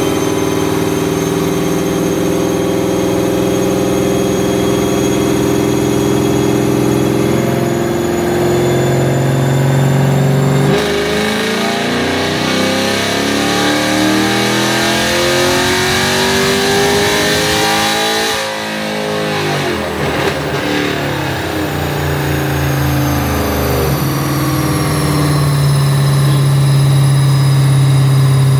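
Cammed Camaro V8 on a chassis dyno, running steadily at part throttle, then about eleven seconds in a wide-open-throttle pull with the engine note climbing in pitch for about seven seconds. The throttle then shuts off abruptly and the engine drops back to a lower steady note.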